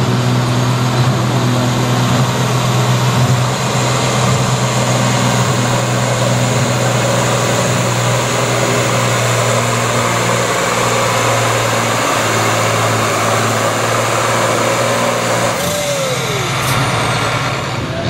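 Diesel engine of a John Deere farm tractor running hard at a steady pitch as it pulls a weight sled in a tractor pull. Near the end the engine sound breaks off and a short falling whine follows.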